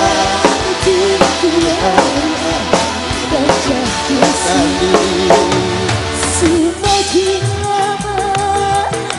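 Live dangdut band music: a drum kit keeps a steady beat under a wavering melody line, with a change in the arrangement about two-thirds of the way through.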